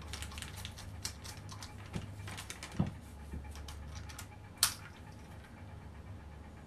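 Small plastic clicks and rattles of a two-part waterproof circular cable connector being twisted and pulled apart by hand, with one sharper click about four and a half seconds in.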